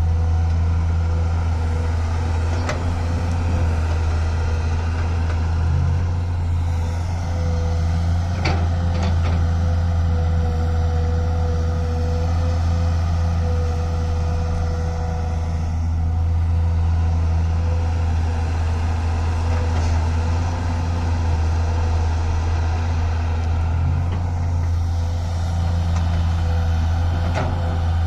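Engine of an excavator-loader machine running steadily under a heavy, even drone, with a few short metallic knocks.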